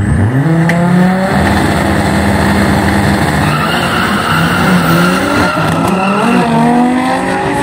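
Drag-race cars, a Volkswagen Golf and an Audi sedan, revving hard at the start line, then launching with tyre squeal and accelerating away, the engine pitch climbing near the end.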